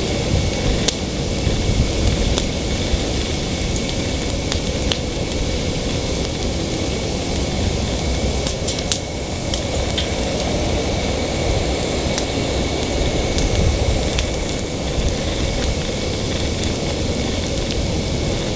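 Large open fire burning steadily: a continuous rushing noise with scattered crackles and snaps.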